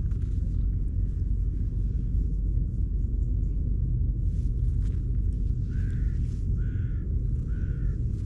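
Close, steady low purring of a ginger-and-white stray cat while it is stroked. About six seconds in, three short bird calls come about a second apart.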